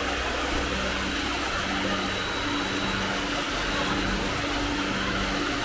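Steady motor-like drone with hiss, and a low hum that fades in and out.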